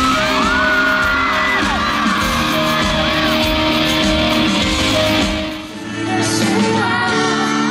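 Live rock-band music in a large hall with audience yelling and whooping over it. About two thirds of the way through it cuts abruptly to a male voice singing a slow Mandarin pop song with band accompaniment.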